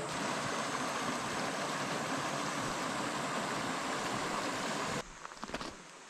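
Steady rushing of a rocky mountain stream flowing over stones, which cuts off abruptly about five seconds in. After that, a few faint steps crunch on gravel.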